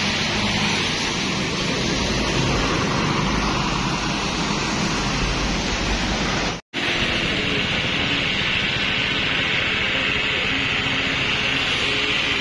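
Road traffic on a wet road: a steady rushing hiss of tyres and engines with vehicles passing. The sound drops out for an instant about halfway through.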